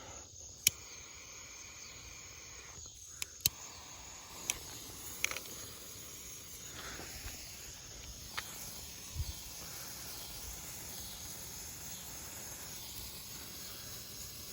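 Crickets chirping steadily, with a handful of sharp clicks and pops scattered through the first nine seconds or so.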